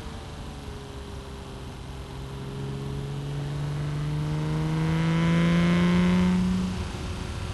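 BMW M3 E36 straight-six, breathing through a Supersprint street exhaust with a decat pipe, pulling hard through a gear. Its note climbs steadily in pitch and gets louder for about six seconds, then drops away abruptly near the end as the throttle comes off. Heard from inside the car over steady road noise.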